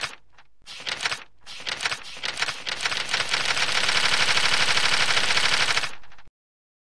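A fast mechanical rattle of clicks, starting in short spurts, then running continuously and growing louder before cutting off suddenly about six seconds in.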